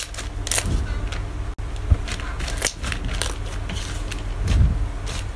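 White slime being kneaded, pressed and stretched by hand, making irregular sticky pops and crackles over a low steady hum.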